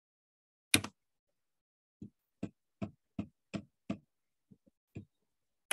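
Computer mouse clicking: one loud click, then a run of six evenly spaced clicks, about three a second, and a few fainter clicks near the end.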